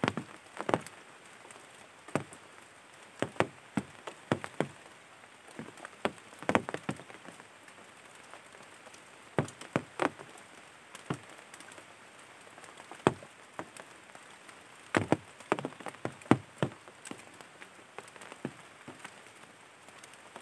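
Drops tapping on a surface at uneven intervals, sometimes two or three in quick succession, over a faint steady hiss.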